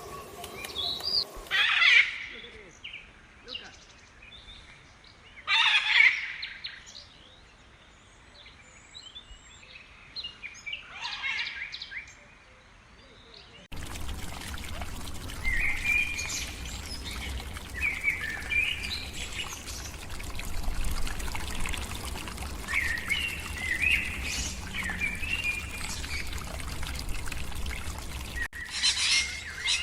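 Wild birds calling: three loud calls spaced a few seconds apart, then, after an abrupt change about halfway through, a stream of shorter chirps over a steady low rumble.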